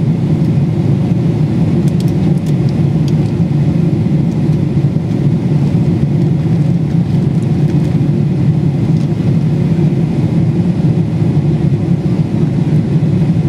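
Steady cabin noise of a Boeing 777-300ER in flight, heard inside the cabin at a window seat over the wing: the even, deep rumble of its GE90-115B engines mixed with the rush of air over the fuselage.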